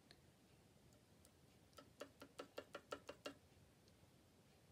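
A quick, even run of about nine light clicks, a little over a second long, from handling a small ink bottle with a fine applicator tip while dotting ink onto paper.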